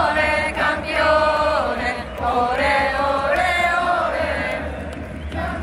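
Stadium crowd of football supporters singing a chant together in unison, in long held phrases.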